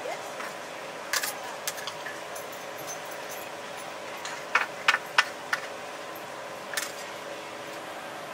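Flat metal scrapers clinking and tapping against a steel griddle tray of frying shredded potato cake: scattered sharp clicks, with four in quick succession about halfway, over a steady background noise.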